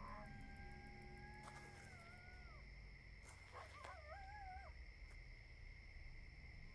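Two faint, drawn-out coyote howls: a long, fairly steady one lasting about two and a half seconds that dips at its end, then a shorter, wavering one about three and a half seconds in.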